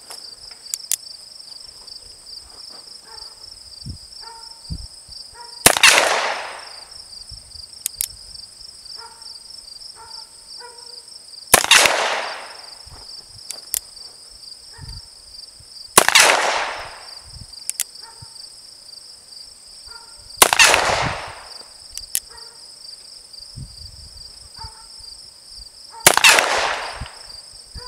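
Five shots from a single-action black-powder revolver, fired one at a time about every four to six seconds, each with a short ringing tail, with faint clicks of the hammer being cocked in between. Insects buzz steadily throughout.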